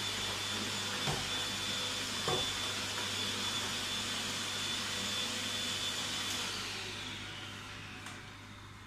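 Electric vacuum cleaner running steadily with a high whine, with two short knocks early in its run. About six and a half seconds in it is switched off and the motor winds down, its whine falling in pitch and fading.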